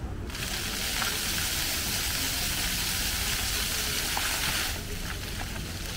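Fountain water jets spraying: a steady hiss that starts suddenly and drops away after about four and a half seconds.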